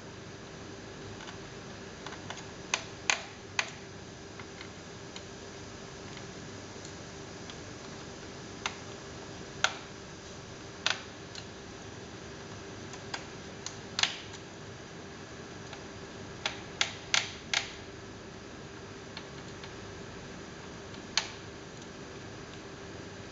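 Scattered sharp clicks and taps, about a dozen at irregular intervals, as a laptop's plastic case is worked on with a small screwdriver, over a steady faint hum.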